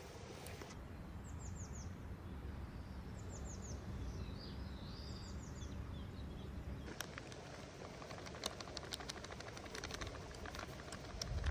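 Birds chirping in short quick runs of three or four falling notes over a steady low outdoor rumble. About seven seconds in this gives way to a rapid run of light ticks and taps as flour is scattered over a wooden board.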